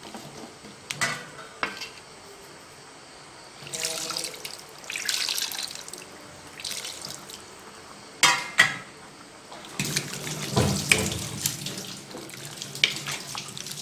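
Water poured in several splashing pours into a metal pot of chicken curry, with a few knocks against the pot.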